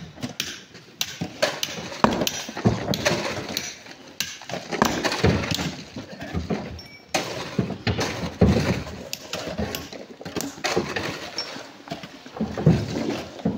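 Irregular knocks, clinks and scrapes of rock being struck and handled, in an uneven run of sharp hits with no steady rhythm.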